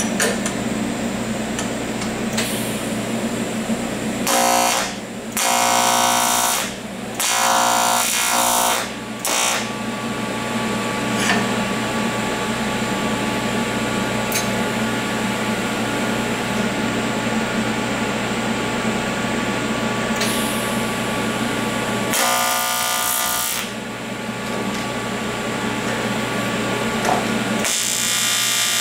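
AC TIG welding arc on aluminum buzzing in short stretches: three quick arcs about four to nine seconds in, another around twenty-two seconds, and a longer one starting near the end, over the steady hum of the running welding machine.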